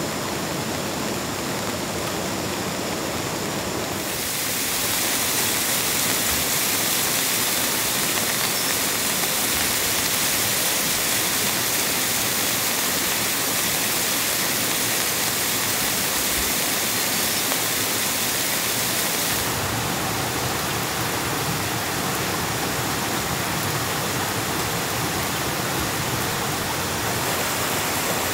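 Steady heavy rain, a dense even hiss with no other sound standing out. It grows louder and brighter about four seconds in and softens slightly near twenty seconds.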